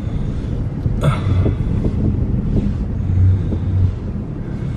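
Car engine and tyres rumbling steadily as the vehicle drives through deep snow, heard from inside the cabin.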